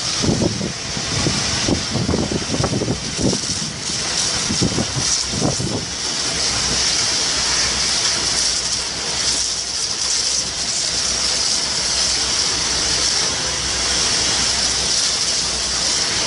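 Fire hose jet spraying water onto a burning combine harvester: a steady hiss, with uneven low rumbles during the first few seconds.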